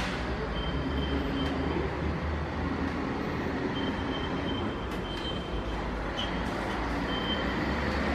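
Ceccato Aquarama Stargate S7 rollover car wash machinery running: a steady low hum of motors and pumps, with a thin high whine that comes and goes a few times.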